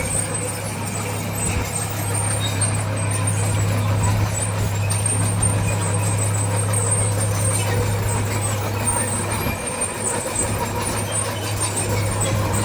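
Heavy diesel earthmoving machinery running steadily under load, a constant low engine drone, with a thin high squeal coming and going.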